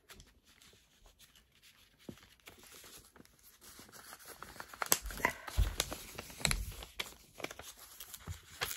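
Envelope rustling and crinkling as stickers are tugged at and worked out of it by hand, with a few soft knocks in the second half. The first few seconds are nearly quiet.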